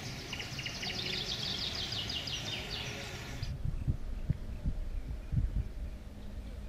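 Songbirds singing, a fast run of high repeated chirps, for the first half. After a sudden cut the birdsong is gone, and a few low dull thumps follow, from handling close to the microphone.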